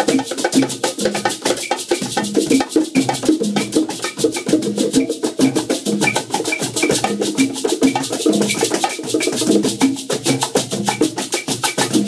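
Rumba played live on congas: open and slapped hand strokes on the drumheads in a dense, steady interlocking rhythm, with a cajón underneath and a high click keeping time.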